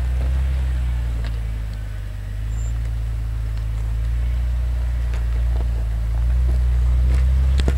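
Jeep Cherokee XJ engine running at low revs as it crawls up a rocky trail. It eases off a few seconds in, then pulls harder near the end, with a few light knocks over the steady engine hum.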